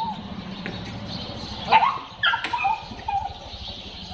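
A dog giving a short cluster of barks and yips around the middle, the first the loudest.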